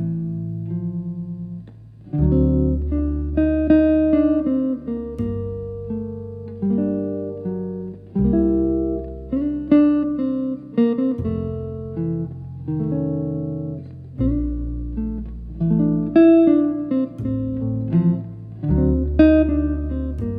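Gentle instrumental music: plucked guitar notes over low bass notes that change every two to three seconds.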